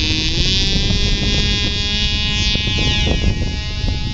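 Small piston engine of an Extra Little RC aerobatic model airplane at full throttle on takeoff: its high-pitched buzz rises in pitch over the first half second, then holds steady as the plane climbs out.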